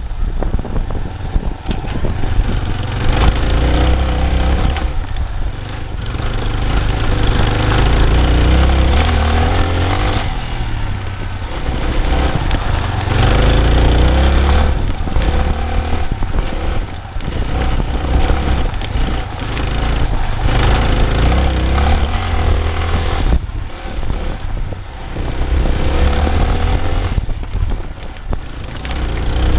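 Dirt bike engine under way, revving up as it climbs through the gears, easing off, and climbing again several times, over a heavy low rumble.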